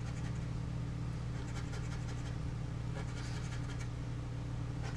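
Scratch-off lottery ticket being scratched: many short, irregular scrapes as the coating is rubbed off the play area. A steady low hum runs underneath.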